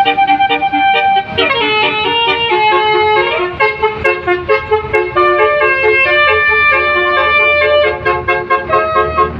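Bus 'telolet' horn, a set of multi-tone horns, playing a melody: held notes that step in pitch, then a run of short quick notes from about three and a half seconds in, with a low vehicle rumble underneath.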